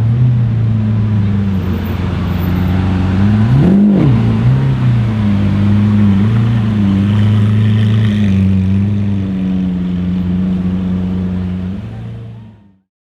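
Audi RS7 C8's twin-turbo V8 with a loud custom exhaust, running steadily at low revs with one quick throttle blip about four seconds in. The note fades out just before the end.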